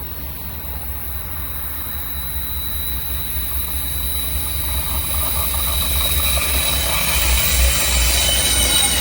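Train approaching and growing steadily louder over a heavy low rumble. A steady high-pitched squeal of wheels on the rails builds more strongly in the last few seconds.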